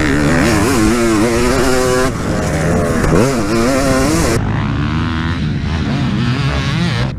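Two-stroke dirt bike engine being ridden hard, its revs rising and falling again and again, with wind rushing over the bike-mounted microphone. A little over four seconds in the wind noise drops away and the engine is heard from farther off.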